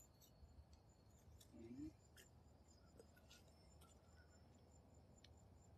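Near silence: faint background with a few soft ticks.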